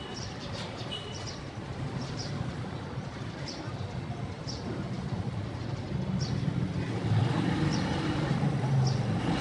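A motor vehicle's engine runs as a low rumble and grows louder about seven seconds in, with short high chirps repeating roughly once a second over it.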